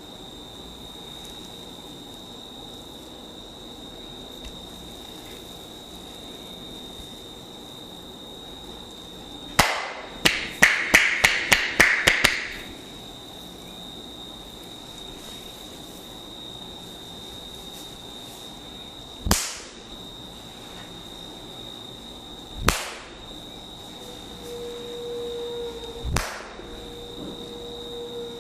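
Barber's percussive massage strokes: a quick run of about eight sharp smacks about a third of the way in, then single sharp smacks every three and a half seconds or so. A steady high-pitched whine runs underneath.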